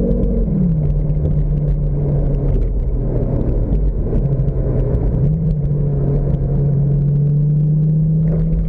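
Lamborghini engine running under way, heard from the open-top cabin with a deep rumble of road and wind. Its pitch drops about half a second in and steps up again about five seconds in, then holds steady.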